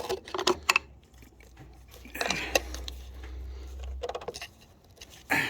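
Metal hook tool clicking and scraping against the EGR valve and its bore as it is worked under the valve's ear to pry out the O-ring-sealed valve: a few sharp clicks, then a scraping stretch near the middle, then more light clicks.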